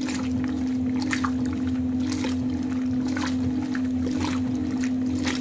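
Maytag top-load washer agitating a load of towels in water with an Easy Spiralator agitator: a steady hum from the drive under a rhythmic swish and slosh of water about once a second, at roughly 62 strokes per minute.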